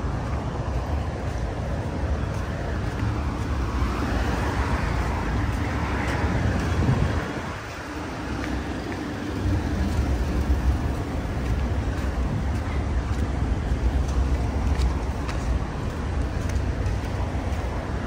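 Street traffic: car engine and tyre noise over a steady low rumble, with a vehicle passing and swelling between about four and seven seconds in.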